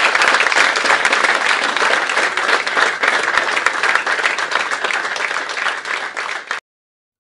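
A roomful of people clapping and applauding steadily. The applause cuts off suddenly about six and a half seconds in, leaving silence.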